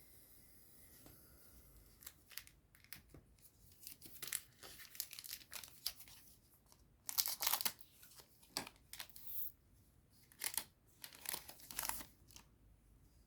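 A foil booster-pack wrapper being torn open and crinkled, in a string of crackling rips and rustles, the loudest near the middle and near the end.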